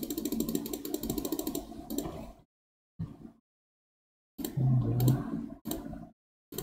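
A rapid, even run of computer mouse clicks, about eight a second, over a low rumbling background noise. The clicks stop about two seconds in, and the sound then drops out to dead silence, broken by a few short bursts of low noise.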